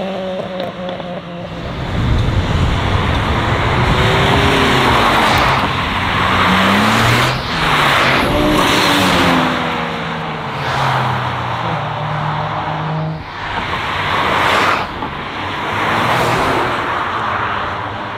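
A string of modified cars accelerating hard away one after another, each engine revving up as it pulls off. The loud exhaust noise swells and fades several times as successive cars go.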